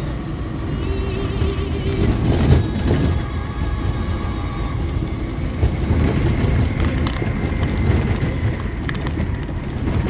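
Car driving over a rough, snow-covered road: steady engine and tyre rumble with knocks from bumps, the loudest about two and a half seconds in.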